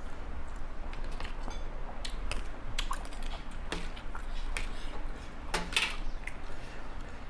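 Person eating papaya salad with raw vegetables: irregular crunching and chewing, with scattered sharp clicks and clinks of utensils and dishes.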